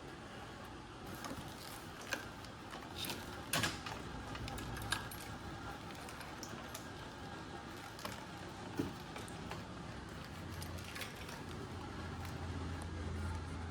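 Irregular clicks and rattles of a car's wiring harness being handled and pulled out, its plastic connectors and clips knocking together. A low steady hum comes in about ten seconds in.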